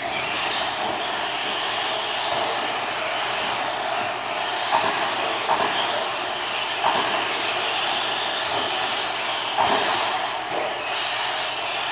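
Several electric 1/10-scale RC stadium trucks racing on dirt: the high-pitched whine of their electric motors rising and falling under throttle, over a steady hiss of tyres on the dirt, with a few short knocks from bumps and landings.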